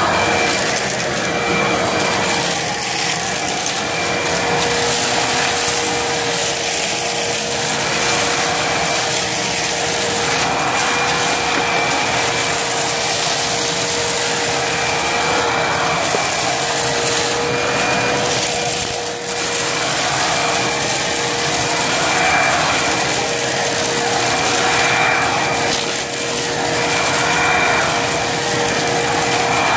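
Hoover vacuum cleaner running continuously over carpet strewn with dirt, a steady motor whine over rushing airflow, its sound rising and falling a little every few seconds.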